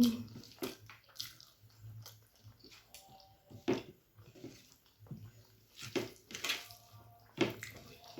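Wet eating sounds of a person chewing a mouthful of rice and curry: soft squelching with several short, sharp mouth smacks.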